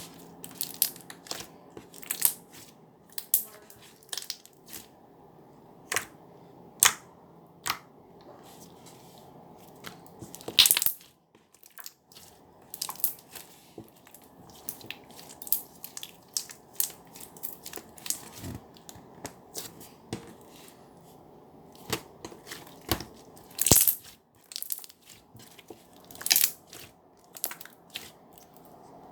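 Irregular, brief, sharp crunches and crackles, dozens of them, some much louder than the rest, over a low steady hiss.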